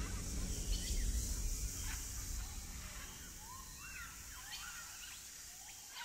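Rainforest birds giving short calls that sweep up and down in pitch, over a steady high hiss. A low rumble dies away in the first two seconds, and the whole sound fades out gradually.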